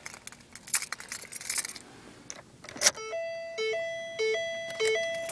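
Car keys jingling at the ignition of a 2011 Ford Focus, then, about three seconds in, the car's electronic warning chime starts: a longer high note and a short lower note, repeating a little less than twice a second.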